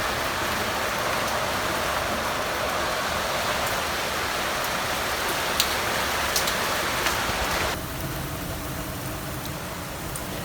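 Rain falling steadily, with a few sharp drops or drips standing out. The sound drops suddenly to a softer rain about three quarters of the way through.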